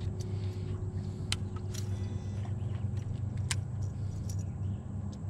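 Steady low motor hum from the boat, with two sharp clicks, one about a second in and another past three seconds.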